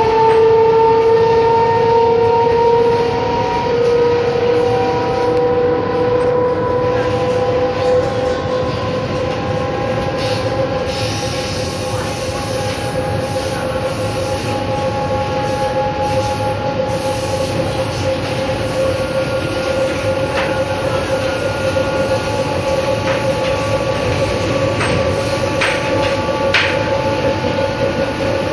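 Z 5300 electric multiple unit running, heard from inside the car: a strong steady motor and gear whine that slowly rises in pitch as the train gathers speed, over wheel-on-rail rumble. A few sharp clicks from the running gear come in the second half.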